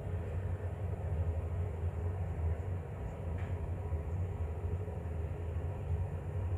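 A steady low rumbling hum, unchanging throughout.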